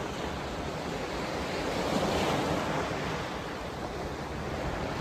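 Surf washing on the beach in strong wind, one wave swelling louder about two seconds in.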